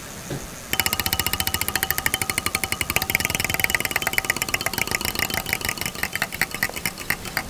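Online spinner wheel's tick sound playing through a touchscreen display's speakers. A rapid run of clicks starts about a second in, one click for each segment the wheel passes, and the clicks slow down as the wheel spins down.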